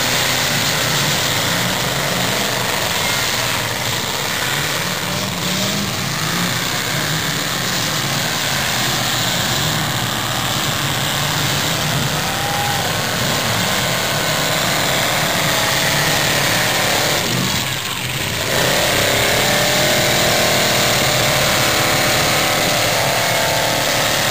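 Several demolition derby cars' engines running and revving together in a loud, steady wash of engine noise. The noise dips briefly about 18 seconds in.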